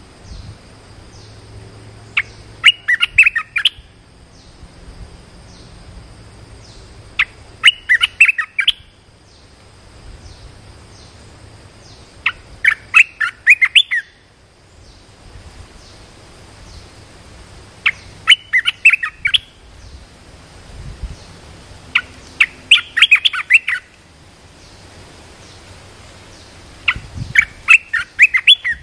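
Caged decoy songbird calling to lure wild birds of its kind. It sings short bursts of rapid, loud chirping notes about every five seconds, six bursts in all.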